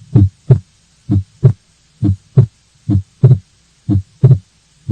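Heart sounds heard on auscultation: a regular lub-dub, each first and second heart sound a short low thump, about one beat a second. It is a recording of a physiological split of the second heart sound (S2): single while the patient exhales, split in two as he inhales, because the pulmonary valve closes later.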